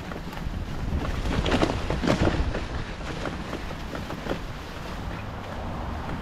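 Wind buffeting the microphone as a low rumble, with rustling and brushing of long grass and weeds being pushed through; the rustling is loudest about two seconds in.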